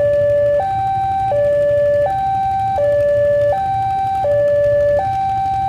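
Railway level-crossing electronic warning alarm sounding a two-tone hi-lo pattern: a lower and a higher tone take turns about every 0.7 s, steady and unbroken. A low steady rumble runs underneath.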